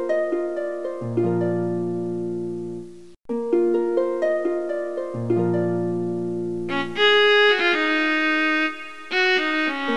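Background instrumental music: a light melody of short notes over held low notes, which cuts out briefly about three seconds in, starts over, and turns fuller and brighter about seven seconds in.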